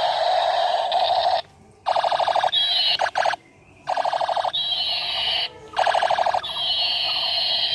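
Electronic siren-like tones: a rapidly pulsing buzz with a sweeping high tone about every two seconds, cutting off abruptly twice.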